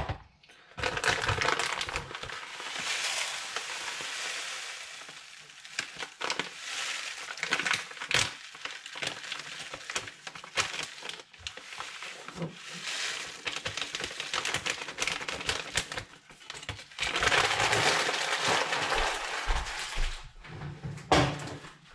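Dry rolled oats poured from a plastic bag into a plastic tub on a kitchen scale: a rustling, rattling pour with many small ticks, coming in several goes, loudest just after the start and again near the end.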